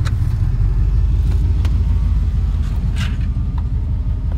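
Steady low engine and road rumble inside the cab of a moving vehicle, with a few faint clicks and rattles.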